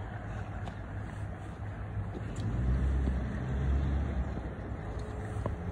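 Low rumble of a motor vehicle, swelling about halfway through and fading again, as if one passes close by over steady background traffic.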